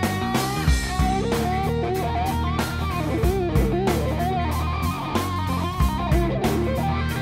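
Background rock music with electric guitar lines over bass and a steady drum beat.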